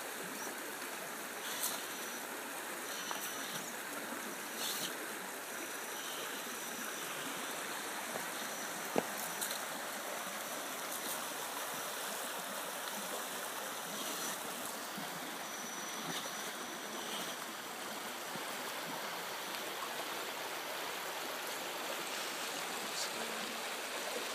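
Steady rush of running stream water, with a few light clicks over it.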